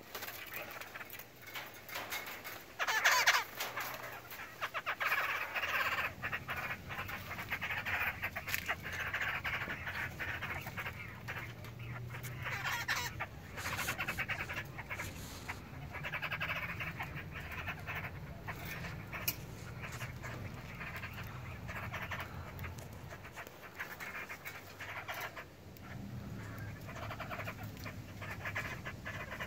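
Young black-throated laughingthrushes calling over and over, a dense run of notes that goes on throughout, with a louder call about three seconds in.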